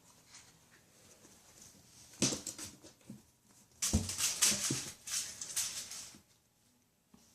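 Kittens scuffling and scrabbling at play, in short bursts of rustling, clicking noise: one brief burst about two seconds in and a longer, louder run from about four to six seconds in.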